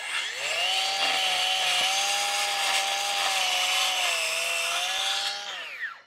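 Circular saw spinning up and cutting into a wooden post, its pitch dipping slightly as it works through the cut. It winds down with a falling pitch near the end.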